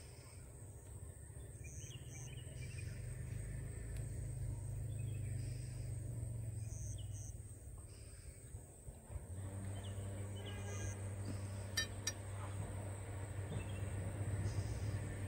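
Rural outdoor ambience: a low steady rumble with scattered short bird chirps. Two sharp clicks come about three quarters of the way through.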